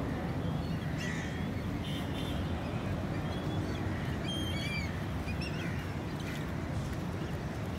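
Small birds chirping in short, quick calls, most of them about four to five seconds in, over a steady low rumble.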